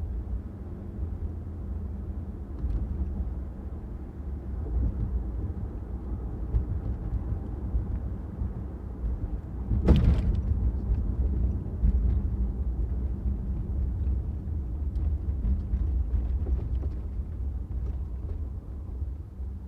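Road noise from a car being driven: a steady low rumble of engine and tyres that swells and eases. About halfway through comes a single sharp knock.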